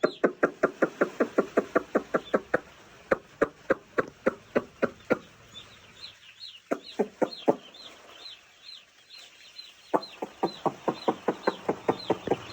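Hen-like clucking made by a person's voice to call and move day-old chicks, in quick runs of about eight clucks a second, with pauses between the runs. The chicks peep faintly and steadily throughout, in high, falling notes.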